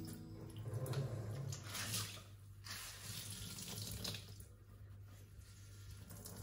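Kitchen tap running into a sink while green asparagus spears are rinsed and rubbed under the stream. The splashing swells and eases as the spears move through the water.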